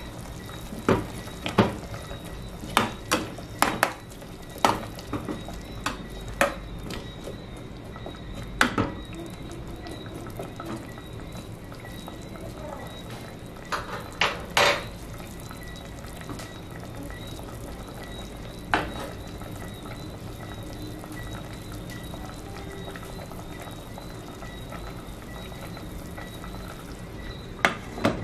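A spoon stirring vegetables into simmering chicken curry in a pressure-cooker pot, knocking against the pot in a quick run of clinks, then a few more now and then. Near the end the lid goes on with a clack, over a faint steady simmer.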